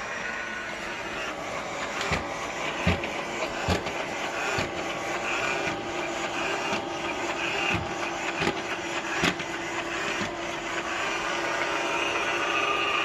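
iSweep S320 robot vacuum running: a steady motor whir with a low hum, and a string of sharp knocks about once a second from about two seconds in until about ten seconds in.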